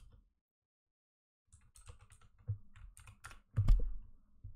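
Typing on a computer keyboard: sharp key clicks that break off for about a second, then start again in a quick run. A much louder, deeper thump about three and a half seconds in is the loudest sound.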